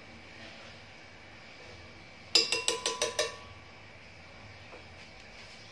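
A metal knife tapped rapidly against the blender jar, about six quick ringing clinks in under a second, a little past two seconds in.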